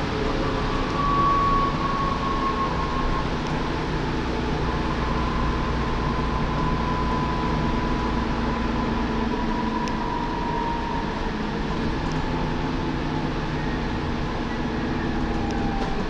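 Dennis Trident 2 double-decker bus running on the road, heard from inside the upper deck: a steady engine drone and road noise, with a thin high whine that slowly falls in pitch.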